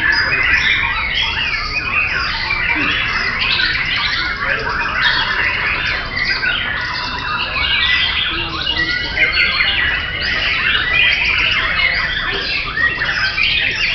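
Many caged white-rumped shamas (murai batu) singing at once: a dense, unbroken mix of overlapping whistled phrases and rapid trills.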